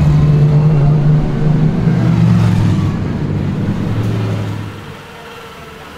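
A vehicle engine running low and steady, fading away about five seconds in.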